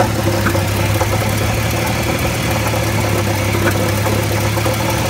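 Jeep Cherokee XJ's 4.0-litre straight-six idling steadily, heard from beneath the engine, with a rattle whose source the owner has not found; he has checked that the flex plate is tight and not cracked.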